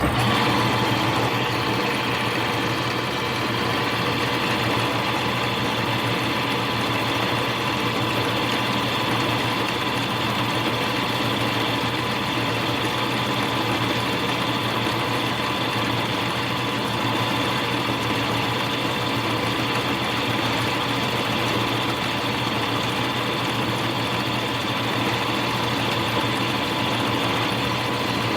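Small lathe running steadily under power, its motor and drive giving a constant whine, while a high-speed steel cutter takes a light finishing pass on a small plastic bushing.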